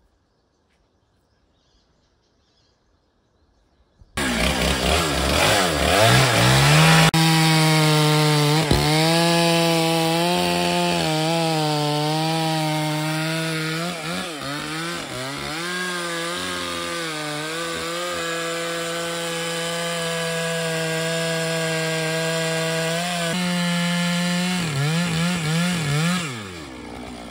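Near silence for the first few seconds, then a large Stihl two-stroke chainsaw starts running abruptly. It revs up to full throttle and cuts into a seasoned oak log, its pitch dipping several times as the chain loads in the cut. Near the end the engine speed wavers and falls back toward idle.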